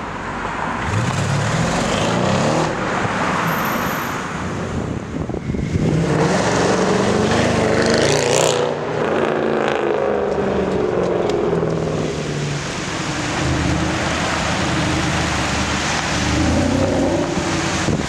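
Performance car engines revving and accelerating away on a city street, several cars in turn. First an Audi RS7's twin-turbo V8 pulls away with rising revs. A louder rev follows with a sharp crack about halfway through, then further engine sound near the end.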